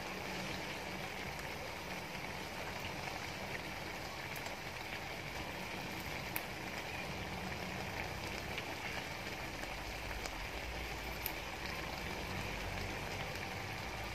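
Squid cooking in its own juices in a wok: a steady, even sizzling hiss, with a few faint ticks.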